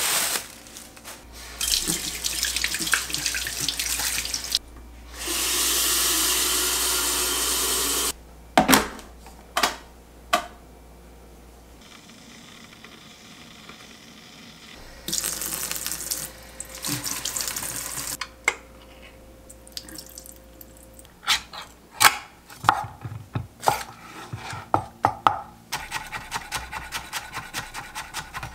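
Tap water running in several stretches, with clicks and knocks of kitchen handling between them. Near the end, quick, even knife strokes slicing green onions on a bamboo cutting board.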